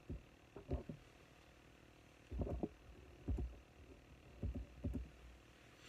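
Several soft, dull thumps and bumps at irregular intervals, handling and movement noise close to the microphone, over faint room hiss.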